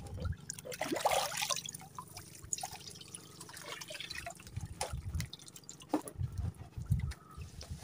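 Water splashing and dripping, with a louder splash about a second in and scattered small drips and knocks after it.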